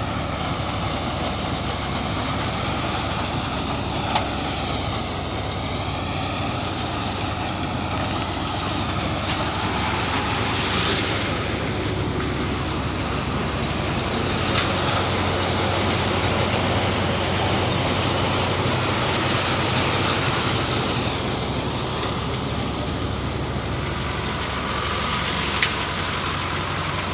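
A tractor engine runs steadily under load, driving a tractor-mounted mini thresher whose threshing drum and fan add a continuous mechanical rush.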